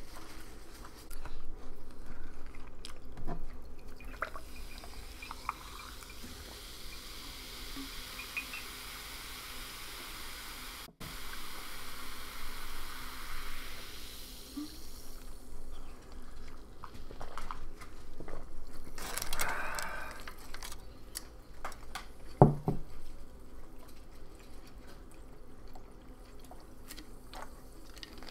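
Water poured from a plastic bottle into a tall glass of ice, a steady pour lasting several seconds, followed by light clinks and handling noises and one sharp knock.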